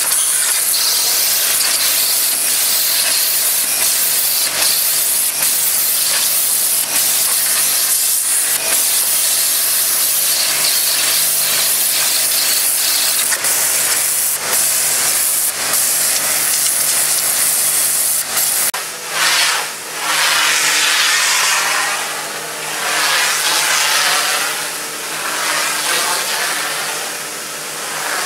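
Jet of an on-board electric pressure washer (The Road Wave) hissing steadily as it sprays, with a steady low hum underneath. About two-thirds of the way in the hum drops away and the spray hiss swells and fades in slow waves as the jet is swept across an RV awning.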